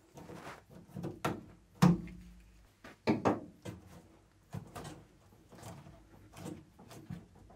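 Rubber boot seal being pressed by hand onto the metal lip of a Triumph TR7's boot opening: a string of irregular knocks, taps and rubs, the sharpest a knock just under two seconds in and another just after three seconds.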